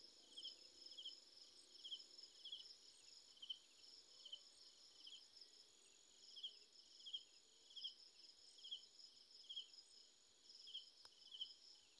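Crickets chirping faintly, a steady run of short chirps a little over one a second, over a thin continuous high insect trill.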